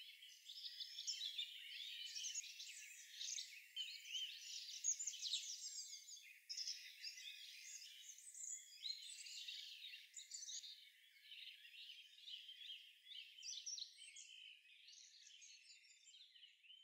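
Small birds chirping: a faint, dense run of thin, high-pitched calls and twitters, fading slightly near the end.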